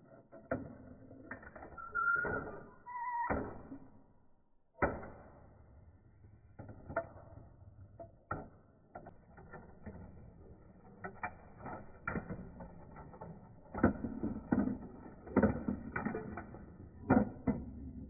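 Marbles rolling along a GraviTrax plastic marble run, with a string of clicks and clacks as they drop through pieces and strike the track. There is a brief ringing tone about two seconds in, and the knocks come thicker and louder in the second half.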